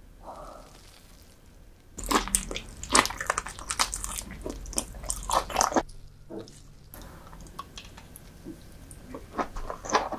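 Close-miked eating sounds of soy-marinated raw lobster and salmon roe: wet chewing, smacking and crisp clicks, starting about two seconds in with a short break in the middle.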